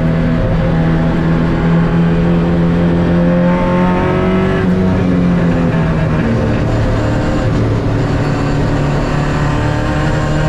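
MG B roadster's four-cylinder B-series race engine pulling hard under acceleration, heard from on board: the pitch climbs, drops at a gearchange about halfway through, then climbs again.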